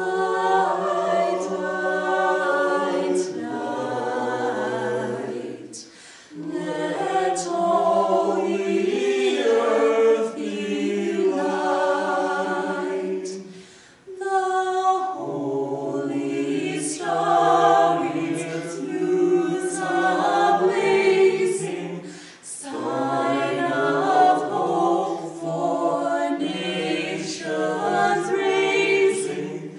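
Mixed vocal quartet of two men and two women singing unaccompanied in harmony. The phrases run about eight seconds each, with short breath pauses between them.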